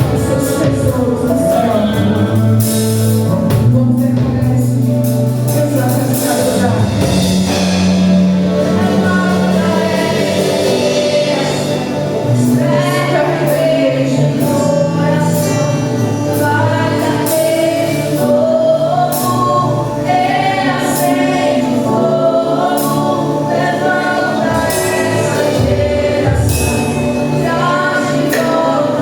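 Gospel worship music: a choir of voices singing over sustained instrumental accompaniment.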